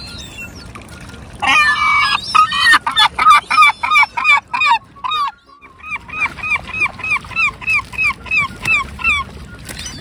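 A gull giving its long call: a drawn-out first note, then a rapid series of loud yelping notes, about four a second. The series breaks off for about half a second midway and starts again.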